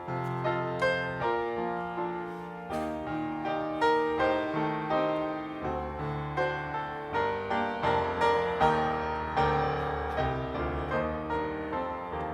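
Piano playing the introduction to a hymn, notes struck one after another over low bass notes and left to ring.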